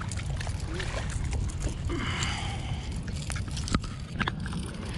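Water sloshing and lapping under a steady low rumble, with a few sharp clicks in the second half.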